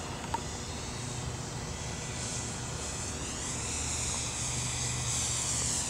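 Dynam T-28 Trojan electric RC model plane flying past, its motor and propeller making a high whine that rises in pitch about three seconds in, over a low wind rumble on the microphone.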